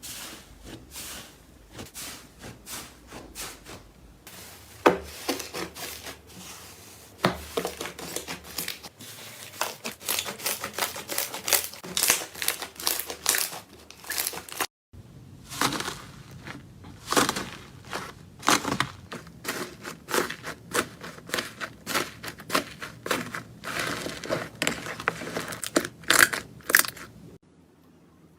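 Slime being squished and stretched by hand, making dense, irregular clicking and popping. It stops briefly about halfway through, then carries on.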